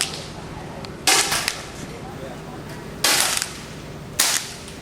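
Air rifles firing pellets on a benchrest firing line: three sharp pops, about one, three and four seconds in, each with a short tail.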